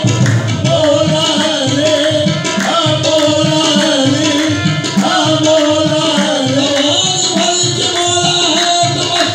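Qawwali music with tabla drumming a steady rhythm under a sustained, gently bending melodic line.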